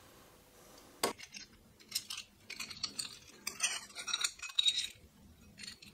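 Metal 3D-printer parts, an aluminium extrusion and a metal mounting plate, being handled: one sharp knock about a second in, then a run of light metallic clinks and rattles.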